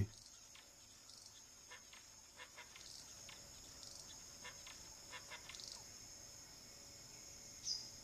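Faint forest ambience: a steady high-pitched insect drone, with scattered short bird chirps and clicks and one louder, sharp downward call near the end.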